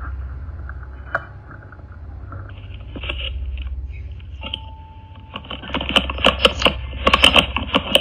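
Hands handling a Ring video doorbell right at its microphone: rubbing and scraping with scattered sharp clicks and taps over a low rumble. The clicking turns rapid and louder in the last couple of seconds.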